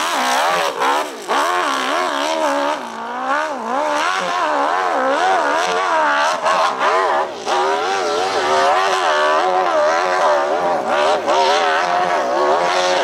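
Open-class hillclimb motorcycle engine (700 cc and up) at high revs as it launches and climbs a steep dirt hill, the pitch rising and falling rapidly as the throttle is worked, with a few brief cuts in the first half.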